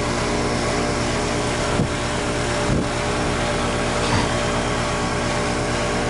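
20-year-old Bryant air-conditioning condenser running: compressor hum and the outdoor fan blowing steadily, with a few brief knocks about two, three and four seconds in.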